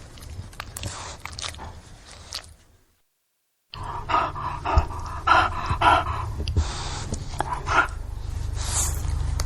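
English bulldog breathing heavily through its nose, snorting and grunting. The sound cuts out for about a second near the middle, then comes back louder with throaty, pitched grunts.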